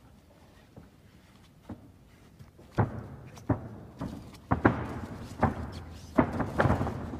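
A run of about seven sharp smacks and thuds, starting about three seconds in after a quiet start: strikes and body impacts as two wrestlers grapple in a clinch against the ring ropes.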